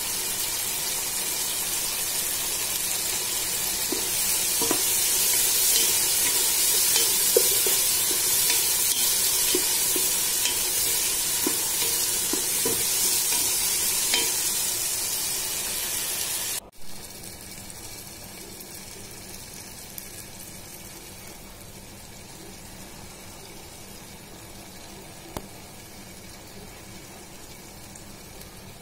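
Chopped tomatoes and shallots frying in oil in a pan: a steady sizzle with scattered scraping clicks of a spatula stirring. About two-thirds of the way through, the sound cuts off abruptly and goes on as a quieter sizzle.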